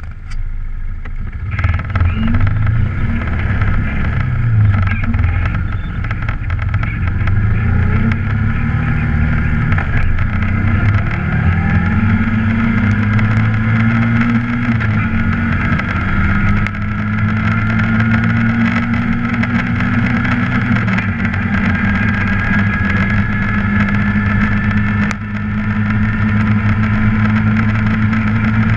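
ATV engine running under way on a dirt track, its pitch climbing in several steps as it picks up speed over the first dozen seconds, then holding steady at cruising speed.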